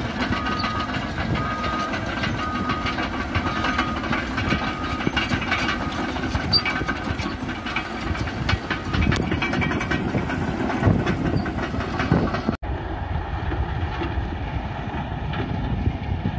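Caterpillar D6 bulldozer's diesel engine running with its steel tracks clattering as it reverses, its backup alarm beeping about once a second for the first five seconds. Near the end the sound changes abruptly to a steadier, duller drone of distant heavy machinery.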